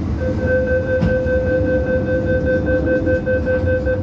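MTR train door-closing warning: a loud, high pulsing beep held for nearly four seconds as the doors shut, over the low rumble of the standing S-Train.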